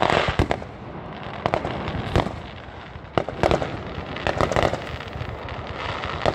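Aerial fireworks shells bursting one after another: sharp bangs every second or so, several of them followed by a spray of crackling.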